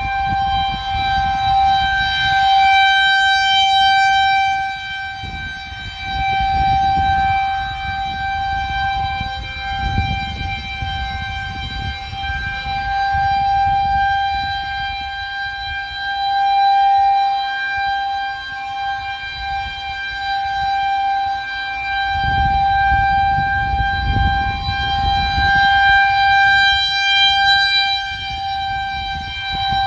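Federal Signal 2001-130 rotating electromechanical outdoor warning siren sounding a steady single-tone alert for a tornado warning, swelling and fading every few seconds as the rotating horn sweeps toward and away.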